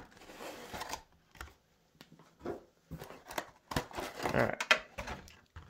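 Cardboard and plastic packaging of a trading card collection box being handled and worked open: scattered rustling, scraping and light clicks, busiest a few seconds in.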